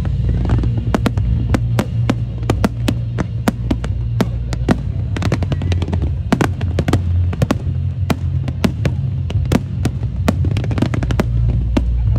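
Fireworks display: rapid sharp bangs and crackles from aerial shells, several a second, over music with a heavy bass line.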